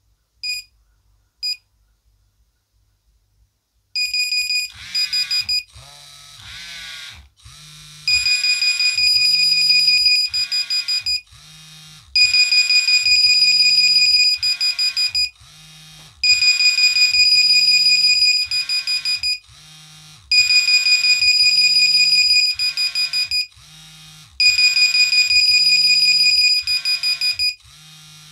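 Three Nokia 1100 mobile phones sounding their alarms together: loud, rapidly pulsing high electronic beeps in bursts of about three seconds, repeating roughly every four seconds, with the phones' patterns overlapping. The alarms start about four seconds in, after two short beeps.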